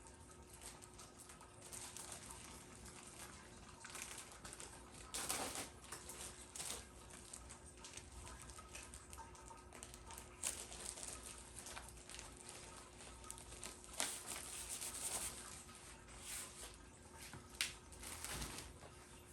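Scattered rustling, clicks and light knocks of things being handled, with a faint steady hum underneath.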